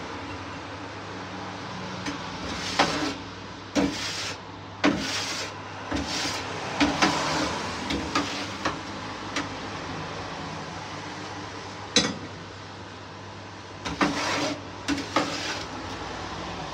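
Metal spatula scraping and knocking on a steel tray of roasting potatoes and vegetables under a rotisserie chicken oven, in irregular sharp strokes over a steady mechanical hum.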